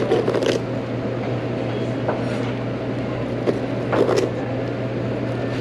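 Steady low machinery hum and room noise of a restaurant buffet, with a few clicks of plastic serving tongs scooping croutons near the start and again about four seconds in.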